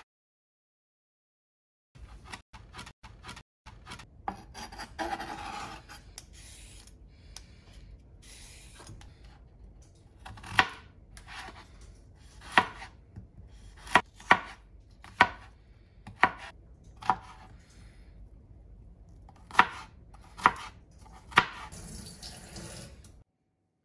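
Chef's knife chopping carrot on a cutting board, starting about two seconds in: a run of light quick taps, with sharper, louder strikes of the blade on the board about once a second in the second half.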